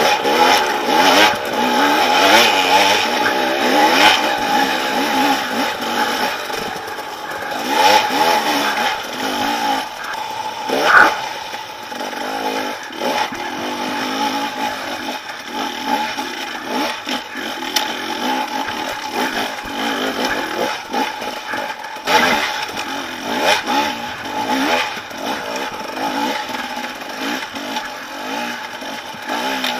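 Dirt bike engine revving up and down over and over as it labours up a steep, rocky trail, with the clatter and knocks of the bike striking rocks; one sharp knock about eleven seconds in.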